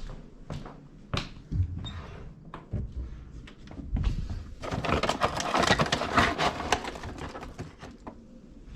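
Dry pet food being handled and poured into a bowl: scattered knocks and clicks, then a dense rattle of many small hard pieces for about three seconds from about five seconds in.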